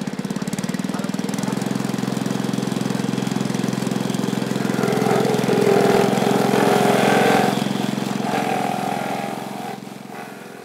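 Small engine-driven coconut shredder running steadily, with a rapid low throb. About halfway in, a louder, higher grinding sets in for a few seconds as coconut flesh is pressed against the spinning grater, then the sound fades away near the end.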